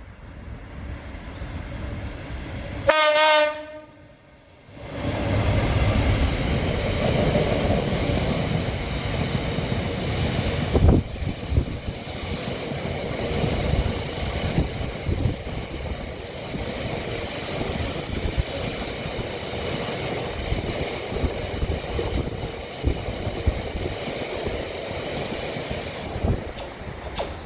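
A train sounds a short single horn blast, then passes at length with a steady rumble of wheels on track and a faint high whine. The sound fades near the end.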